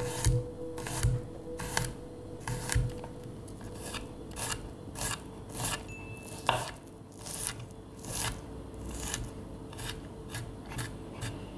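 A chef's knife slicing garlic cloves on a wooden cutting board: crisp cuts, each ending in a knock of the blade on the wood, about two a second.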